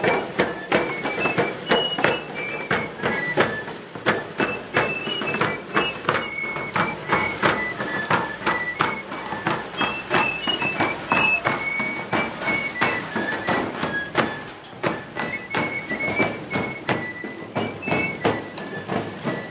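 Provençal tambourinaires marching and playing: a high, shrill pipe melody (galoubet) over a steady beat on long tambourin drums.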